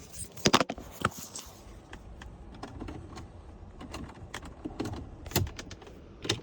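Irregular sharp clicks and light knocks, the loudest about half a second in and again near five and a half seconds.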